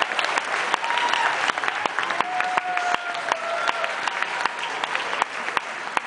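Theatre audience applauding with dense clapping and a few voices calling out; the clapping thins out a little towards the end.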